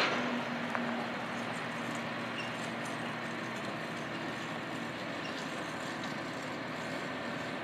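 Fire engine's diesel engine idling steadily in the station bay before pulling out on a call.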